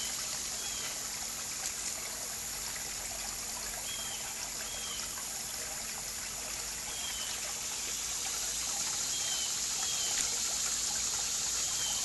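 Koi pond water trickling steadily, under a constant high hiss and a scattering of short, falling high chirps.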